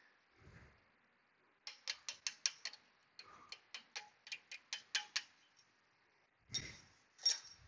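Sharp metallic clicks from hand work on a brake caliper: two runs of quick clicks, about five a second, then two louder knocks near the end.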